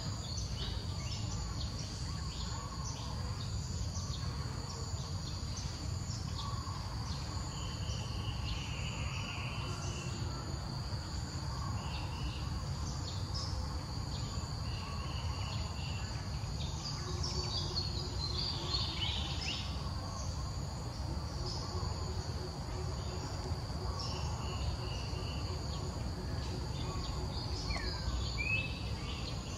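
Outdoor ambience dominated by a steady, high-pitched insect drone, with short bird chirps now and then and a steady low rumble underneath.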